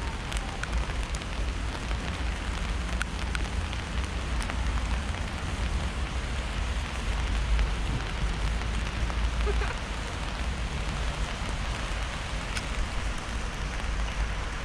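Jasień river water rushing steadily, high and fast after heavy rain, a continuous wash with a deep rumble underneath.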